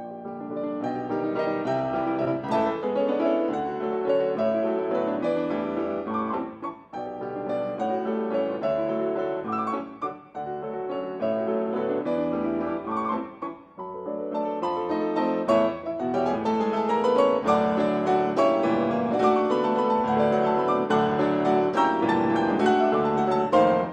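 Solo piano music: a flowing classical-style passage of many notes, with brief pauses between phrases.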